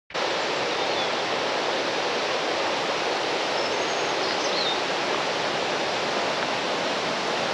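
Steady rush of running water, like a stream or small waterfall, with a few faint high chirps about halfway through.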